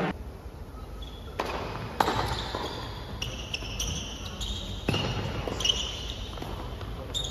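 Doubles tennis rally on an indoor hard court: a few sharp racket strikes on the ball, with shoes squeaking on the court in between.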